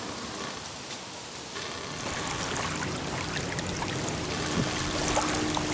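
Small wind-driven waves lapping and trickling at the reedy shore and against the hull of a small rowboat. About two seconds in the water sound grows louder, with many small splashes and knocks, and a faint steady low tone joins near the end.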